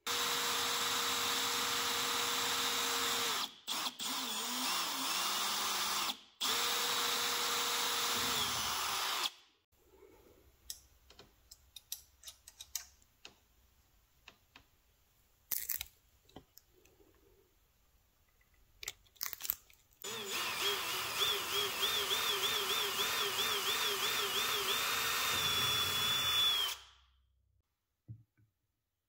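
Handheld power drill running in short runs of a few seconds each, its motor holding a steady pitch, with light clicks and knocks of handling between runs. Near the end a longer run has a pitch that wavers up and down, as under a changing load.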